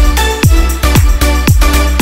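Background electronic music with a steady kick-drum beat, about two to three hits a second, over a held bass.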